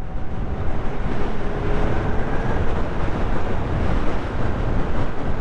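Wind buffeting the microphone and tyre noise on wet asphalt from a Zero FX E electric motorcycle ridden at about 60 km/h and gathering speed. A faint whine, likely the electric motor, shows about two seconds in.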